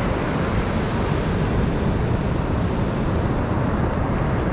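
Steady wash of ocean surf breaking on a sandy beach, an even, unbroken noise.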